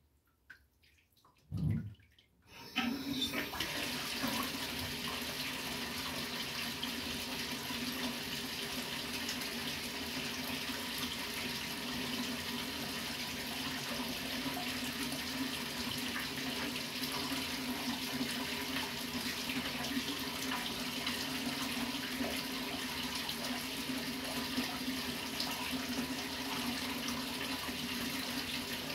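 A water tap turns on about three seconds in and runs steadily, a full, even gush of water, after a few brief knocks just before.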